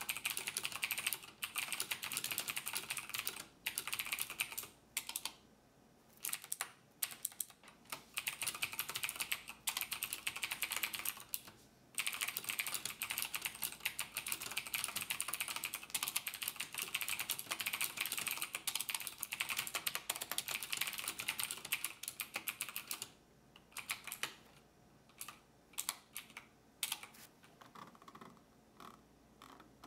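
Fast typing on a computer keyboard, in runs of rapid keystrokes broken by short pauses, with one long unbroken run in the middle. It thins to scattered single keystrokes near the end.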